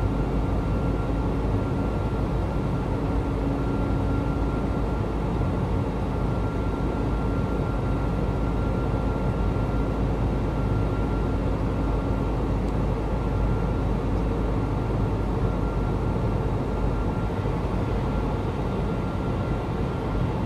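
Steady jet airliner cabin noise in flight: engine and airflow rumble with a faint steady whine on top, unchanging throughout.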